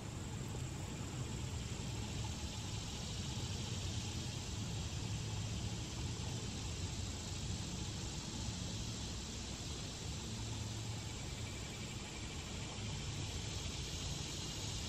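Steady summer insect chorus, a continuous high-pitched drone, over a low steady rumble.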